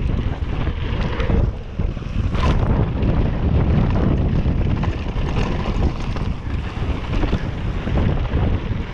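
Wind rushing over the action camera's microphone as a mountain bike rolls fast down a hard-packed dirt trail, with tyre noise and scattered knocks and rattles from the bike over bumps.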